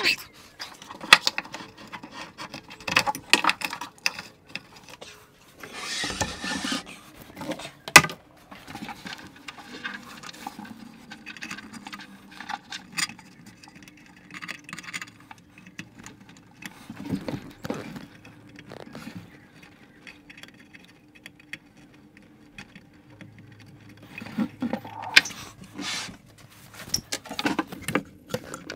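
Handling noises as a Shapeoko CNC machine on its wooden base is pushed back into its plywood enclosure and worked on: scattered clicks and knocks and a brief scrape about six seconds in, with one sharp loud knock about eight seconds in. A faint steady hum runs underneath.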